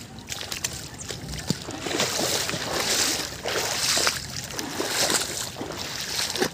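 Shallow river water sloshing and splashing, in noisy swells that come and go about once a second from about two seconds in.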